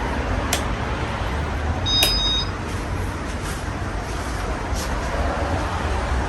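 A Casablanca Halogen Star ceiling fan running: a steady rush of moving air over a low hum, with a few faint clicks and a brief high-pitched tone about two seconds in.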